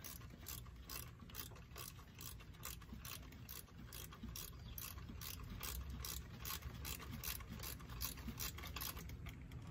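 Ratchet wrench clicking in a steady rhythm, about three clicks a second, as the fuel rail mounting bolts are run in.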